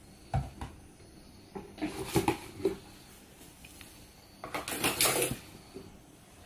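Handling noises from clear plastic snake tubs and lids: a few light knocks and clatters, then a longer scraping rustle a little after the midpoint.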